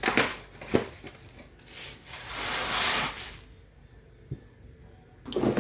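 Plastic food containers and packaging being handled: a few light knocks, and a rustling, scraping noise lasting about a second and a half in the middle.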